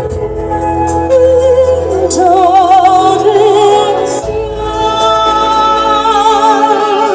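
A singer holding long notes with a wide vibrato over steady musical accompaniment.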